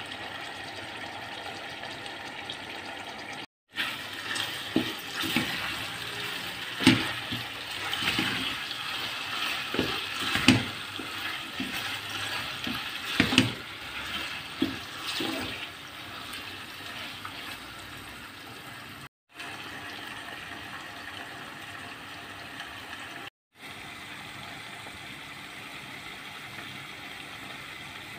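Cubed liver sizzling and bubbling in oil and its own released juices in a stainless steel pot. Between about 4 and 16 s a wooden spatula stirs it, with irregular scrapes and knocks against the pot; the steady hiss drops out briefly three times.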